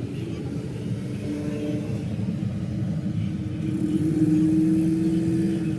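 An engine running steadily with a low hum, rising a little in pitch and getting louder about four seconds in, then easing off near the end.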